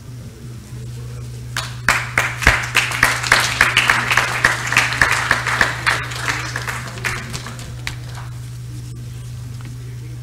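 Audience applauding in a hall, starting about a second and a half in, strongest for a few seconds and dying away after about six seconds, over a steady low electrical hum.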